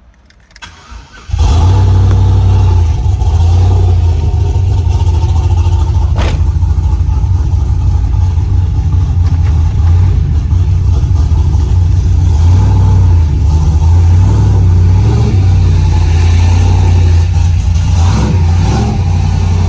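Cammed LS V8 in a Chevrolet Silverado pickup firing up about a second in, then running loudly and steadily. There is a single sharp click about six seconds in.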